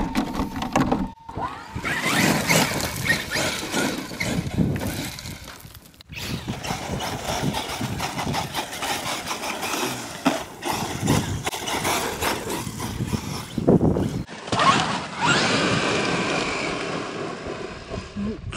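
Traxxas X-Maxx electric RC monster truck driving hard on dirt: the motor and drivetrain whine rises and falls with the throttle over the crunch of tyres on dirt, with a rising whine as it speeds up near the end. The sound is broken by abrupt cuts.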